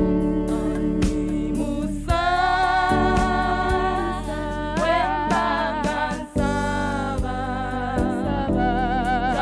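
A female vocal group singing a gospel praise song in harmony, with vibrato on long held notes, over an instrumental accompaniment with a steady beat.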